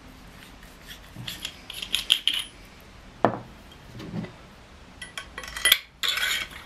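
Metal tube sections of a survival stick being handled and fitted together: scattered clinks, scraping and rubbing, with two firmer knocks near the middle and a burst of rattling near the end.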